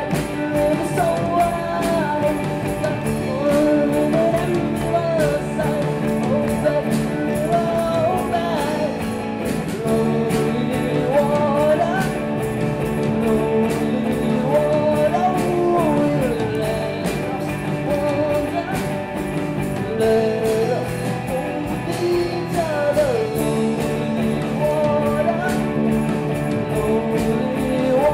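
Live rock band playing a song: drums keeping a steady beat under electric guitars and bass guitar, with a melodic lead line on top.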